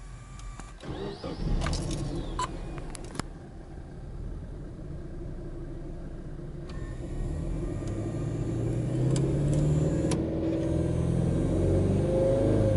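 Subaru Legacy 2.0GT spec B's turbocharged 2.0-litre flat-four (boxer) engine, heard from inside the cabin: it starts about a second in and settles to a cold fast idle. Over the second half the engine speed rises to about 3000 rpm and it gets louder.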